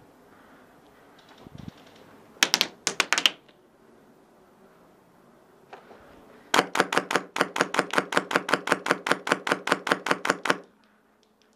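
Airsoft rifle firing close to the microphone: a quick string of about five shots, then, a few seconds later, a long steady string of about two dozen shots at roughly six a second that stops abruptly.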